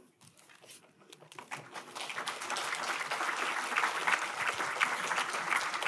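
Audience applauding: a few scattered claps that swell into steady applause about two seconds in.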